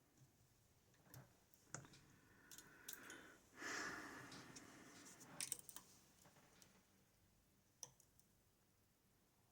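Faint, scattered small metallic clicks and ticks of a lock pick and tension wrench working the pin stacks of a high pin count lock, with a soft breathy rush a little before halfway.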